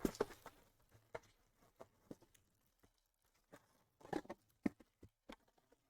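Scattered light taps and clicks of trading-card packs and cardboard being handled on a table, with a small flurry of them about four seconds in.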